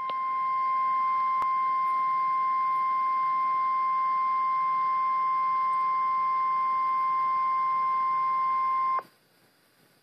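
NOAA Weather Radio 1050 Hz warning alarm tone coming through a Midland WR-300 weather radio's speaker: one steady high tone over light hiss, swelling in over the first second and cutting off suddenly about nine seconds in, leaving faint hiss. It signals that a warning broadcast follows.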